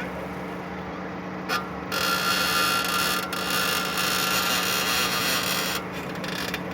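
Chevrolet Cruze creaking from the front wheel as the steering wheel is turned, over a steady engine idle: a short creak about a second and a half in, then a longer scraping creak with a squeaky tone lasting about four seconds.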